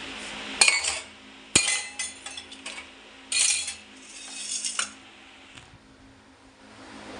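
Steel kitchen utensils and pots clinking and clattering against each other and the countertop in several short bursts, with one sharp knock about a second and a half in.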